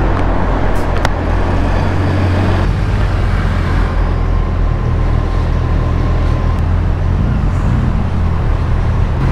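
Motorcycle engine running with a steady low drone under road and wind noise; the upper noise eases slightly a few seconds in.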